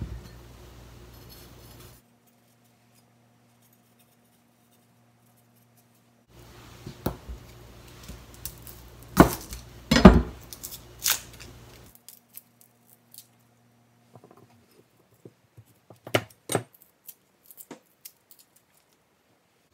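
Chef's knife striking a plastic cutting board a few times in the middle, the loudest sounds, as ginger and garlic cloves are trimmed and peeled. Later come fainter scattered clicks and rustles of the dry skins being pulled off by hand.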